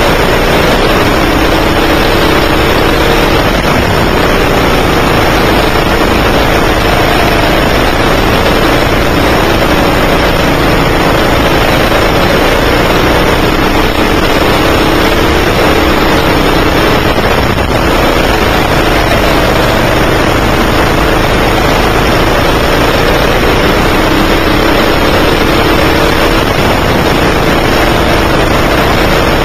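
A 9 hp go-kart engine heard up close from the kart itself, running hard with its pitch climbing and falling again and again as the kart accelerates along the straights and slows for the corners. A loud, even rushing noise lies under it throughout.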